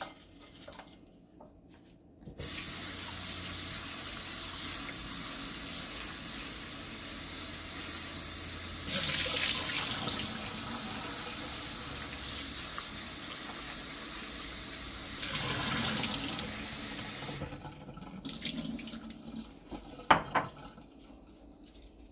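Kitchen faucet running into a bowl of raw shrimp in a stainless steel sink as they are rinsed: a steady rush of water that starts about two seconds in, gets louder twice for a moment, and stops a few seconds before the end. A single sharp click follows.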